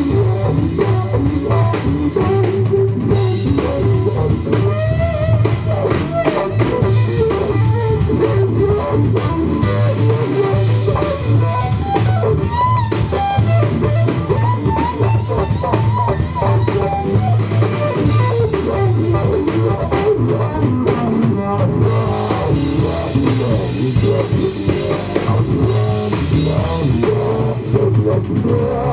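Instrumental funk-rock band playing: an electric guitar lead with bent, gliding notes over bass guitar and a steady drum-kit groove.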